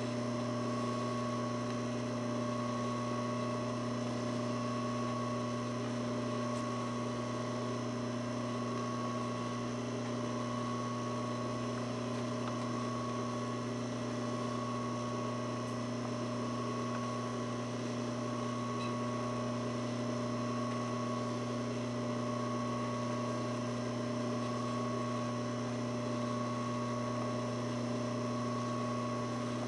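A steady background hum made of several fixed pitches, unchanging; the hand stitching itself cannot be heard.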